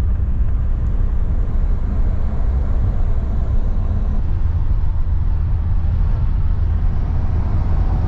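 Steady low road rumble and wind noise of a vehicle driving at highway speed, heard from the cabin beside an open side window while overtaking a heavy lorry.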